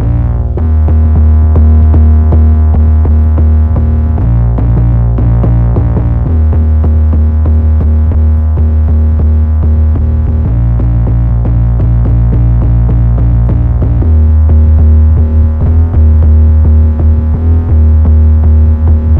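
Trap beat playing back: a synthesized, distorted 808 bass holds long, loud notes that change pitch every few seconds, under a steady pattern of drum-machine hits.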